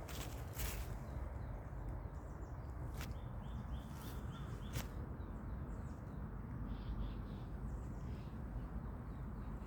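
Small birds chirping in short runs of quick high notes over a steady low rumble of outdoor noise, with a few brief sharp clicks.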